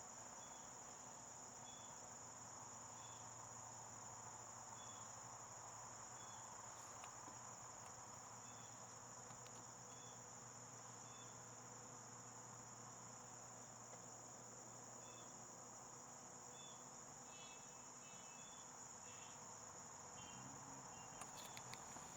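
Faint, steady high trill of crickets, with fainter chirps repeating about once a second.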